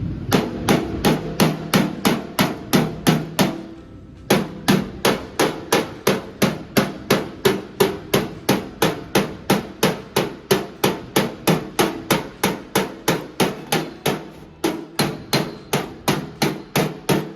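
Body hammer striking the steel front fender of a 1955 Chevy against a dolly held behind the panel, at about three ringing blows a second with a short pause about four seconds in: working out the small dents and high spots in the fender.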